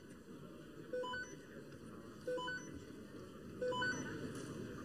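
Short electronic beeps in a repeating pattern, a small cluster of pitches sounding about once every second and a third, over a faint hushed room noise.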